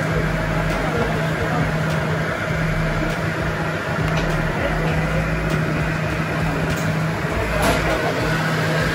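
Busy street background: steady traffic noise and people's voices talking, with a low hum that drops out briefly a few times.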